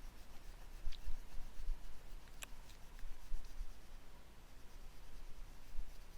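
A white colouring stick rubbing back and forth on paper, blending white into pink, with a few small clicks; the sharpest comes about two and a half seconds in.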